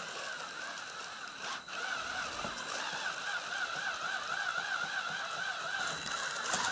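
Cordless drill spinning an abrasive nylon cylinder brush through a Yamaha Raptor 700R's Nikasil-coated aluminium cylinder bore, a steady whir with a wavering pitch. The brush is scrubbing the bore clean and knocking down high points, not honing it.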